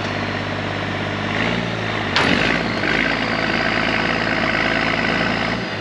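Heavy plow truck's engine running steadily under load while towing on a chain, with one sharp clunk a little over two seconds in.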